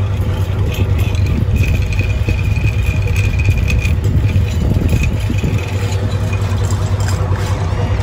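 Shrimp boat's Caterpillar diesel engine running steadily with a low purr. A faint high whine joins in about a second and a half in and lasts a couple of seconds.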